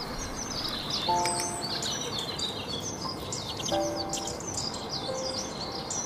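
Dense chirping of many small songbirds, with soft sustained music chords sounding about a second in, near four seconds and again about five seconds in.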